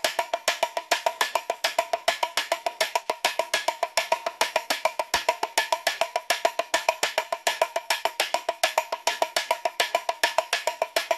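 Music track: a rapid, even wood-block-like clicking percussion pattern at about seven clicks a second, with no other instruments.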